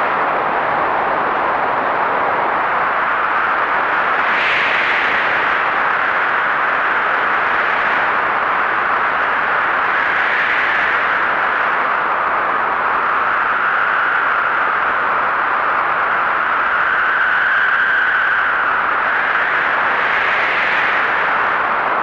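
Heavy blizzard wind blowing steadily, swelling in gusts three times. A faint howling note runs through the middle stretch.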